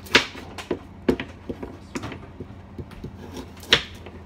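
Kitchen knife slicing carrots on a wooden cutting board: an uneven series of sharp knocks as the blade strikes the board, the loudest just after the start and again near the end.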